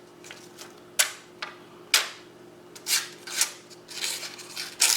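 Victorinox Hunter Pro lockback knife blade slicing through a sheet of paper in a sharpness test: about five quick, crisp swishes, roughly a second apart.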